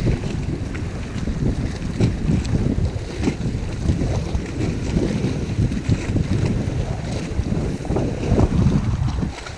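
Wind buffeting the microphone in gusts, a rough, fluctuating low rumble, over choppy water slapping against the boat.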